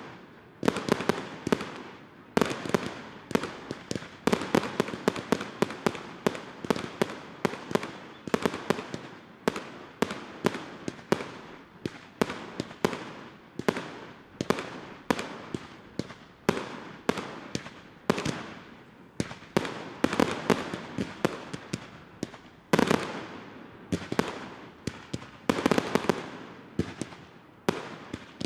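Professional aerial fireworks going off in a rapid barrage: sharp bangs several times a second, each one trailing off quickly before the next.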